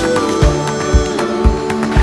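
Background music with a steady beat, about two beats a second, over sustained held tones.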